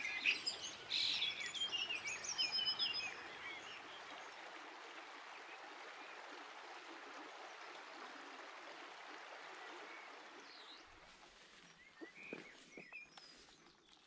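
Songbirds chirping and trilling over the steady rush of river water, the birdsong busiest in the first few seconds. Near the end come scattered light knocks and a few more bird notes.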